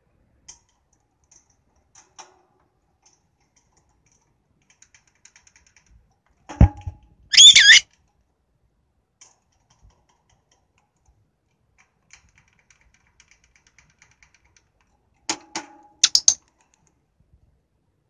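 Lovebird letting out a loud, sharp squawk about halfway through and a short burst of squawks near the end, among scattered light clicks and taps. A thump comes just before the first squawk.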